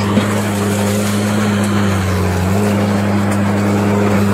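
Caterpillar 312B excavator's diesel engine running at a steady speed, with a brief knock just after the start.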